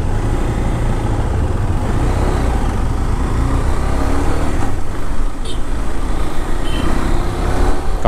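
KTM 390 Adventure's single-cylinder engine pulling away from a near standstill and accelerating up the street.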